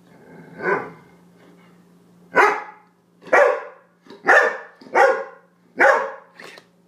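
Yellow Labrador retriever barking: a softer opening woof, then five sharp barks about a second apart and a short yip near the end.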